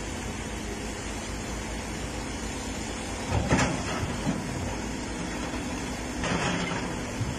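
Heavy diesel engines of a truck and an excavator running steadily while a large marble block is loaded. Two short, louder bursts of noise come about three and a half and six and a half seconds in.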